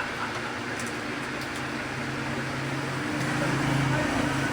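Steady mechanical hum of a running motor or engine, with a low and a higher tone held over a hiss, growing a little louder past the middle.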